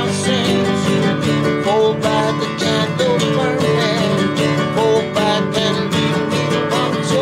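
Nylon-string classical guitar strummed and picked, with a man's voice singing a wavering melody over it.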